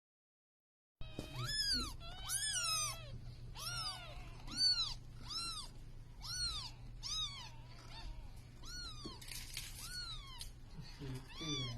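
A cat meowing over and over: a quick run of short, high meows that rise and fall, more than one a second, starting about a second in. A brief rush of noise comes about nine seconds in.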